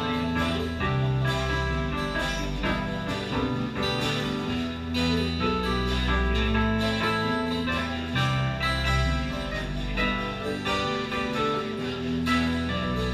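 Live band playing: strummed acoustic and electric guitars over keyboards, with deep bass notes and drum hits keeping a steady beat.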